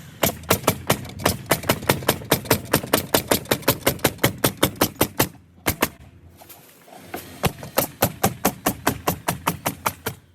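Pneumatic nail gun bump-firing in rapid strings of about six shots a second, fastening wooden fence pickets to the rails. After about five seconds of firing there is a short pause with two single shots, then another rapid string.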